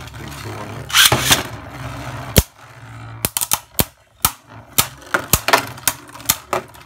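Beyblade Burst spinning tops battling in a plastic stadium. A second top is launched in with a rasping burst about a second in. From about three seconds in, the two spinning tops clash in a run of sharp clacks, several a second.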